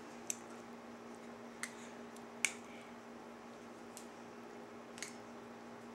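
Faint clicks and rustles of hands tying off a braid with a hair elastic, about five short sharp ticks spaced a second or so apart, over a steady low hum.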